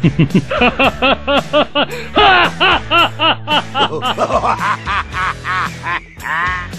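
A man laughing hard in a quick run of high-pitched bursts, over steady background music.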